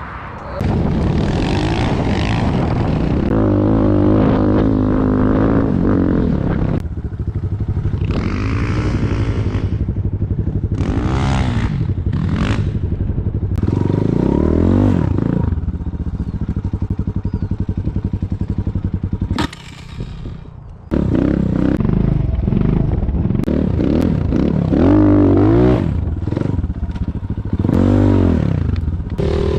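Off-road motorcycle engine revving up and down over and over, its pitch climbing and falling with each burst of throttle. It drops away briefly about twenty seconds in, then revs on.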